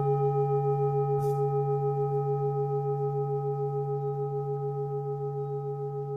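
Singing bowl ringing: a low tone with several higher overtones that waver in a steady pulse and slowly fade.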